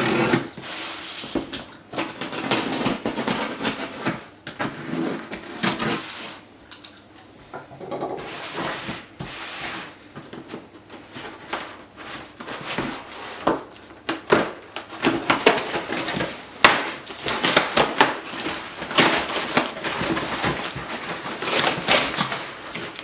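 Box cutter slicing through the packing tape and cardboard of a large shipping box, in irregular scraping strokes with tearing and rustling of cardboard. Near the end the box flaps are pulled open.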